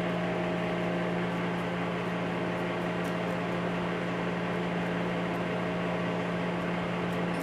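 Steady machine hum with a low tone and a higher one held unchanged, cutting off at the very end. Faint light scratches of a hobby knife scraping gasket residue off an aluminum carburetor body sit over it.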